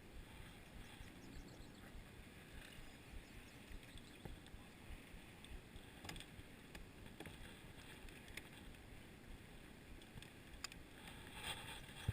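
Near silence: faint outdoor background noise with a few light clicks.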